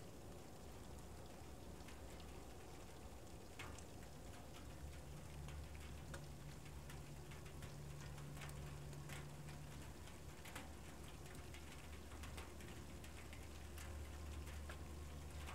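Faint night-time outdoor ambience: scattered light ticks and patters over a low steady hum.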